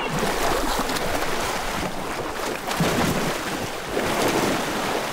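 Heavy splashing and churning of muddy water as elephants plunge and thrash through a shallow pool, with louder surges about three seconds in and again near the end.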